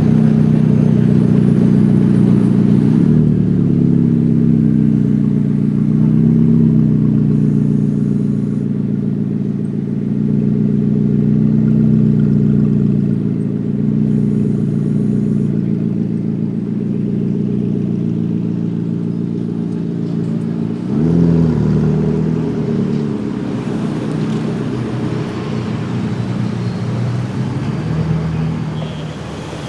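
A car engine running loud and steady with a deep exhaust note, giving a short rev blip about two-thirds of the way through before settling back.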